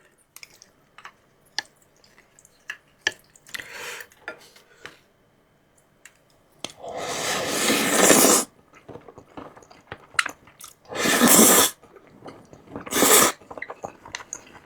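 Close-up eating of mixed noodles with a spoon: soft chewing and small spoon clicks, broken by three loud slurps, the longest lasting nearly two seconds about halfway through and two shorter ones later on.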